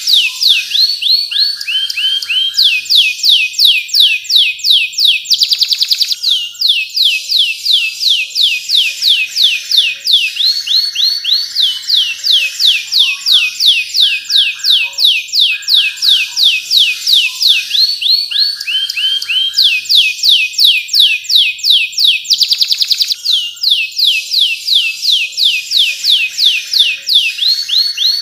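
Domestic canary singing a long, loud song: rows of fast repeated falling whistles, about four a second, broken by quicker rolling trills at a lower pitch.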